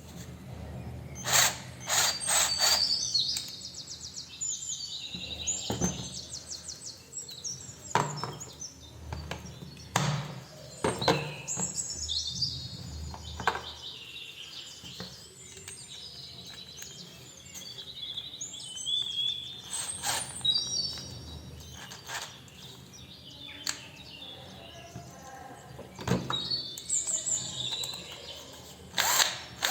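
Small birds chirping and warbling in high, gliding phrases, with sharp clicks and knocks now and then.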